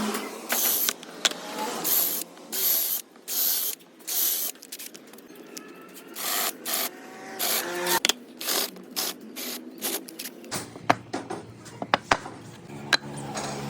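Woodworking hand tool being worked in regular back-and-forth strokes on wood, about one and a half strokes a second. About ten seconds in, this gives way to scattered sharp clicks and taps.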